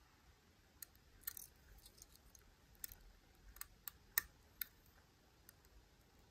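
Lock pick working in the keyway of a Miwa U9 lock: a scatter of light, sharp clicks, irregularly spaced, most of them bunched in the middle.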